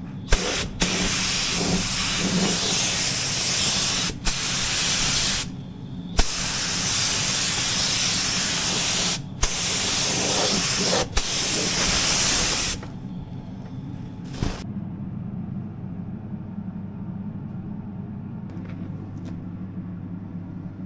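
Compressed-air gravity-feed paint spray gun spraying paint: a loud, even hiss in several bursts of a few seconds each, with short breaks as the trigger is let off. The spraying stops about two-thirds of the way through after one last short burst, leaving a steady low hum.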